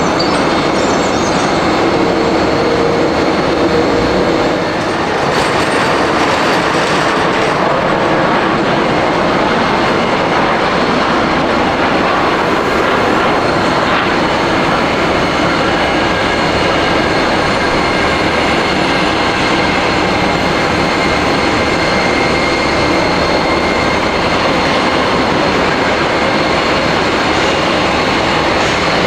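Jet airliner engines running close by: a steady, loud rushing noise with faint high whining tones.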